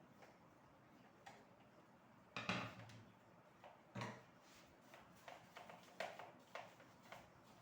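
Faint scattered clicks and knocks, with two louder knocks about two and a half and four seconds in, then a quick run of lighter clicks.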